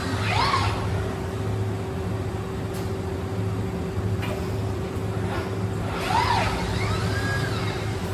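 Industrial robot arm's servo motors whining as the arm swings through a tool-change move: the whine rises and falls in pitch twice, about half a second in and again around six seconds in. A steady machine hum with a constant tone runs underneath.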